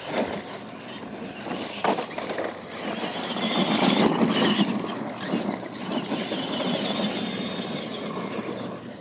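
Radio-controlled monster trucks racing on a dirt track: motors and gears whining, with tyres churning the dirt. Loudest about four seconds in, as one truck passes close.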